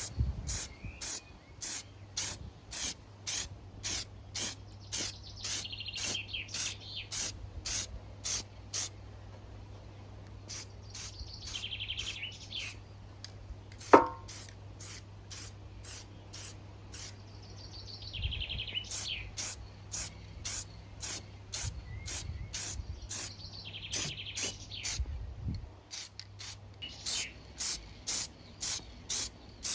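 Aerosol spray-paint can hissing in short, rapid pulses, about three a second, as a light dusting coat is sprayed on, with a couple of brief pauses. Bird song phrases come every few seconds, and one sharp click sounds about halfway through.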